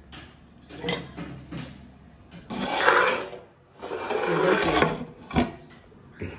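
Metal lid scraping across the rim of a large cooking pot twice as the pot is covered, with a sharp clink near the end.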